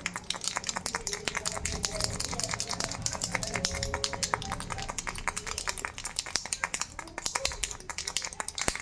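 Ball-shaped baby rattle shaken continuously, a dense stream of rapid clicks.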